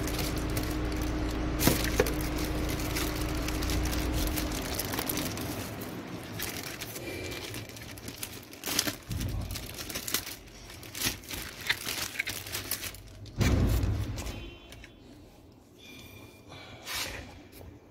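Plastic wrapping crinkling and tearing, with scattered handling clicks, as a new cabin air filter is unwrapped and handled. A low steady hum runs through the first few seconds, and a louder thump comes about 13 seconds in.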